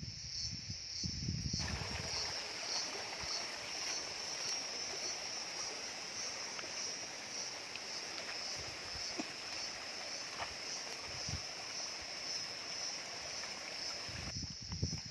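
Shallow stream rushing over rocks, with a steady high-pitched insect drone above it. The water sound comes in about a second and a half in and drops away shortly before the end.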